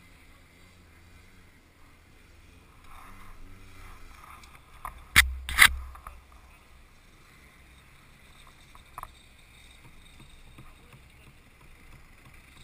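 Racing go-karts heard muffled through a helmet-mounted action camera's housing: a dull steady engine rumble with hiss. About five seconds in come two loud sharp knocks half a second apart, with a smaller click a few seconds later.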